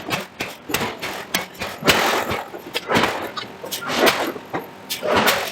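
Giant forging hammer striking repeatedly, a heavy blow about once a second, each with a short noisy rush after it, and lighter clanks and knocks in between.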